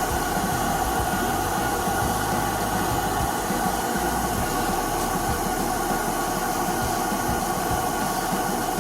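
Electric nail drill running steadily as it grinds down a toenail: an even whine with a hiss.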